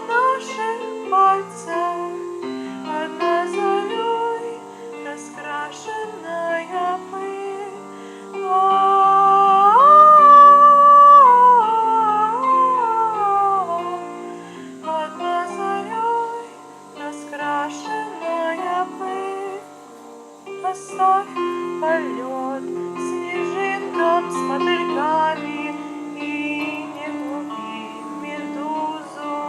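Music: a plucked, guitar-like accompaniment of many short notes. Roughly a third of the way in, a louder held melody line comes in and slides up and down.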